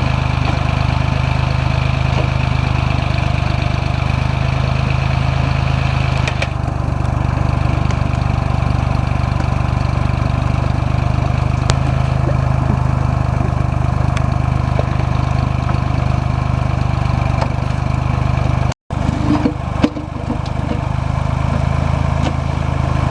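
Small Ford tractor's engine running steadily as it powers a three-point-hitch backhoe. The engine note shifts slightly about six seconds in. Near the end it cuts out for an instant, then runs on with a few knocks.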